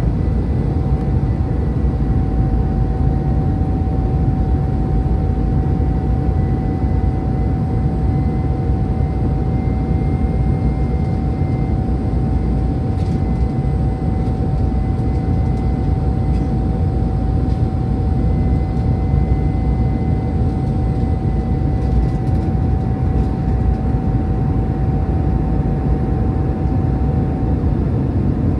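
Airbus A319-100 cabin noise heard at a window seat over the wing: a steady low engine and airflow drone during the descent toward landing. A steady mid-pitched whine runs over it and stops near the end.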